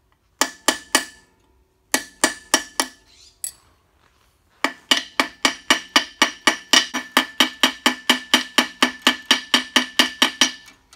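Hammer striking a steel punch held against the lock washer on the nut atop the Model A axle housing, bending up the washer's tab. The blows ring like metal: two quick bursts of four, one lone blow, then a long steady run of about four strikes a second.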